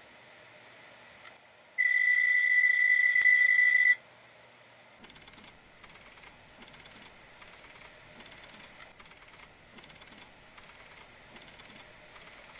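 Failing hard disk drive: a loud, high-pitched steady whine for about two seconds, then a run of fainter, irregular ticks at about two a second. These are the kind of sounds that indicate serious trouble with the drive.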